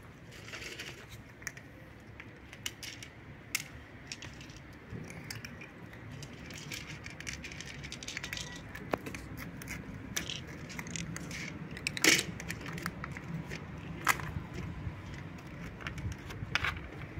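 Cats eating dry kibble from plastic plates: irregular crunching and clicking of the pellets, with a sharper click about twelve seconds in.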